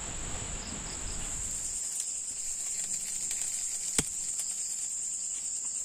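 Steady high-pitched drone of insects, with a single sharp click about four seconds in.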